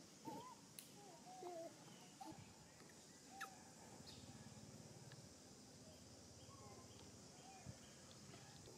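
Faint animal calls over a quiet outdoor background: short calls that glide up and down in pitch, several in quick succession in the first two seconds, then a few scattered ones later.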